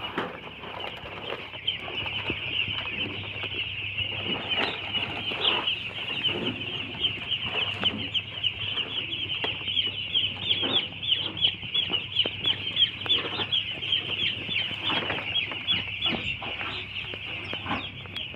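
A brood of two-day-old broiler chicks peeping all together: a dense, unbroken chorus of short high cheeps, with scattered light knocks and rustles underneath.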